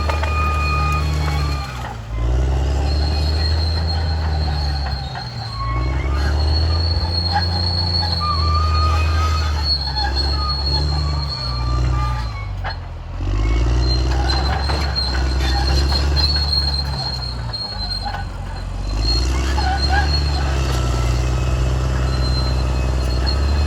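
Caterpillar D6R XL bulldozer at work: its diesel engine runs hard, its pitch dropping and recovering several times as the load comes on and off, with a high metallic squeal from the tracked machine over it.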